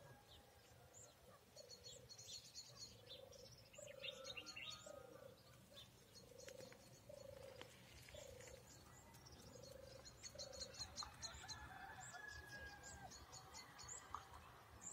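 Faint birdsong: bursts of quick, high chirps, with a lower call repeated about once a second through the first two-thirds.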